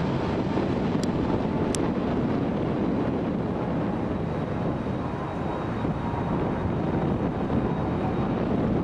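Jet airliner engines running, a steady rumble with a faint whine, mixed with wind buffeting the camcorder microphone.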